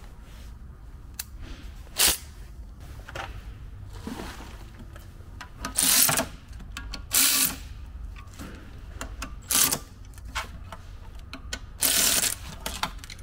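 Socket ratchet wrench clicking in several short bursts as bolts are run down on the alternator's mounting brackets, over a steady low hum.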